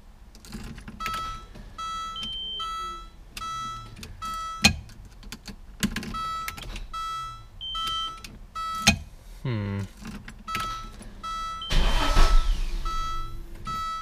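1987 Audi 5000's dashboard warning chime dinging over and over, about twice a second, with sharp clicks as the ignition key is worked. The starter never cranks the engine: the repaired ignition switch still fails to start it.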